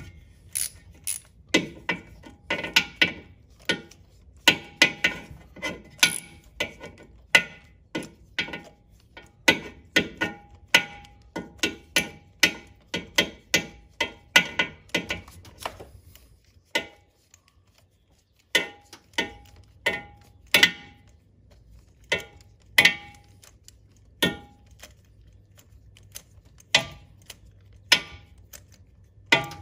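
Hand ratchet clicking in quick bursts of short back-strokes as it turns a spark plug socket on a long extension, loosening a spark plug. There is a short pause about two-thirds of the way through before the clicking resumes.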